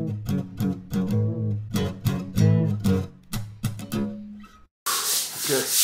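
Acoustic guitar music: a run of separately picked notes and chords. It cuts off suddenly about four and a half seconds in. After a brief gap, a loud, harsh rushing noise like rubbing starts.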